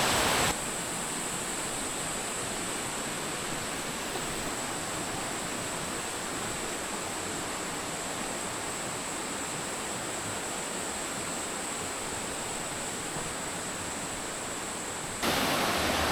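Mountain stream water rushing steadily, an even hiss of flowing water. It drops a step quieter about half a second in and comes back up about a second before the end.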